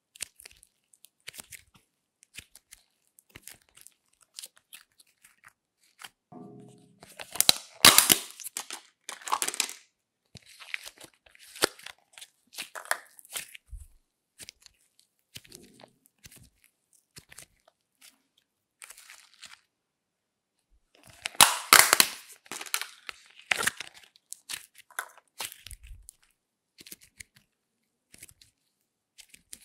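Fluffy slime being stretched, folded and squeezed by hand, giving sticky crackling and popping sounds in scattered clicks. There are two louder runs of crackling, around eight seconds in and again around twenty-two seconds in.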